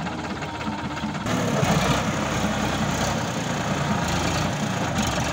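Sonalika tractor's diesel engine running steadily while the tractor sits bogged down in paddy-field mud. The sound gets louder and fuller about a second in.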